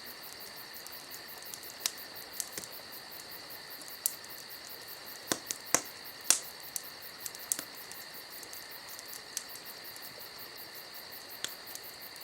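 Steady high-pitched insect chirping, like crickets, with a dozen or so sharp clicks scattered throughout, the loudest about five and six seconds in.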